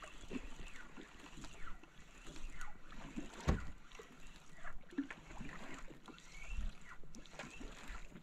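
Water lapping and sloshing against a small boat's hull, with scattered small splashes and one louder knock about three and a half seconds in.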